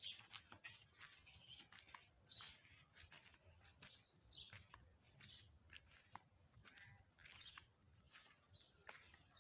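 Faint bird chirps and short whistled calls, scattered and irregular, with a few light clicks.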